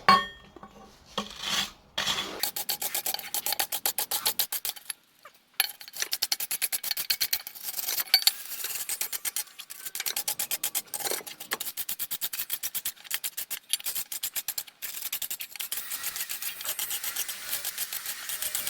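Rapid back-and-forth scrubbing strokes, about five or six a second, scraping dirt off a part of a car starter motor. A sharp knock comes at the start, and there is a short break about five seconds in.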